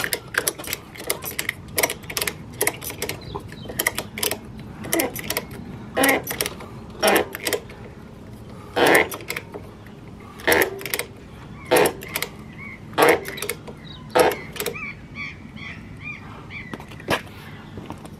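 Ratchet strap being worked by hand, its ratchet giving a run of sharp metallic clicks and clacks at irregular intervals as the strap's tension is adjusted.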